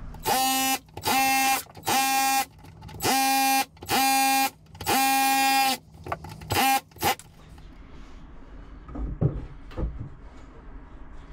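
Cordless Ozito rotary hammer drill chipping concrete off a wall in about seven short bursts, each about half a second long, stopping about seven seconds in. Quieter handling noise and a few knocks follow.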